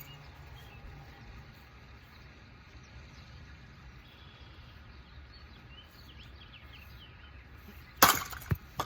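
Quiet outdoor background, then near the end a loud sharp hit followed about half a second later by a smaller knock: a thrown rock striking an old hanging 36-inch industrial ceiling fan.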